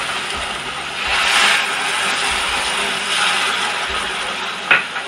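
Milk sizzling and bubbling as it hits hot ghee-roasted semolina in a metal pan, stirred with a spatula. A single sharp knock near the end.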